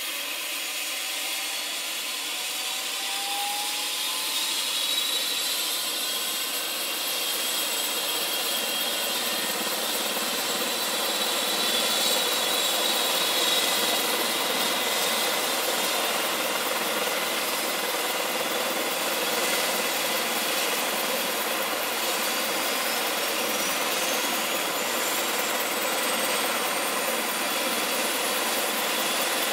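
Eurocopter EC135 T2+ helicopter starting up: the whine and hiss of its Turbomeca Arrius 2B2 turboshaft engines spooling up as the rotor turns, several high tones rising slowly in pitch and the whole sound growing gradually louder.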